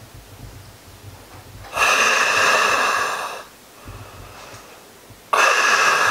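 Two long, loud breaths drawn through a full-face gas mask's filter, each lasting well over a second, with a hollow, resonant hiss. The first starts about two seconds in; the second starts near the end and carries on.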